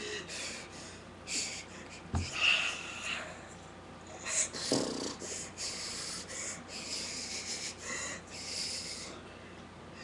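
A person's breathy huffs and mouth noises: a string of short hissing puffs with no words, and a single low thump about two seconds in.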